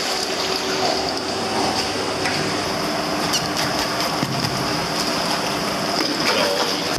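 A steady mechanical hum with a few faint tones, and water splashing around a swimming Doberman.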